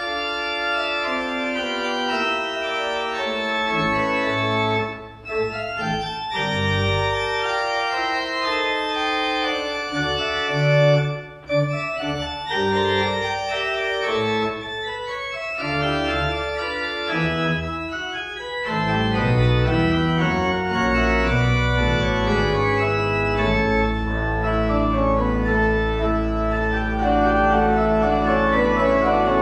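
Church pipe organ playing a postlude at the end of the service: sustained chords with moving lines, broken by two brief pauses between phrases in the first half. About two-thirds of the way through, a deep pedal bass comes in and the sound grows fuller.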